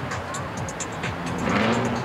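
A car engine accelerating as it drives away, its pitch rising in the second half, with music playing over it.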